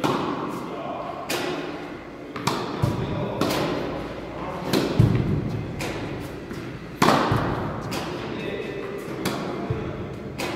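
Tennis ball struck with a racket again and again, a hit every couple of seconds, with lighter ball bounces in between. Each hit rings out in a large, echoing indoor hall.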